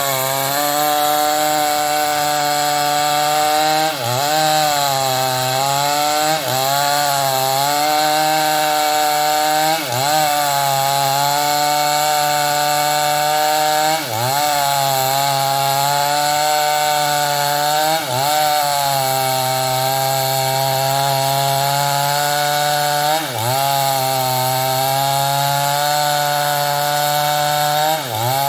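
New West 588 two-stroke chainsaw running near full throttle as it cuts into the trunk of a ketapang (tropical almond) tree. Its pitch sags briefly about every four seconds as the chain bogs in the wood, then climbs back.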